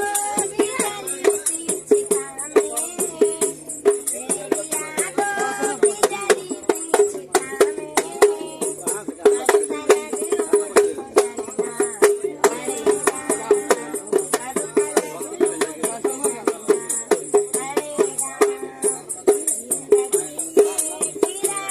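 Woman singing a song to a dholak drum beating a steady, even rhythm.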